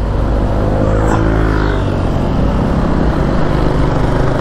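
Honda scooter engine pulling away from a stop under load, pushing a second scooter that has run out of gas; its pitch rises over the first two seconds, then holds steady, over low wind and road rumble.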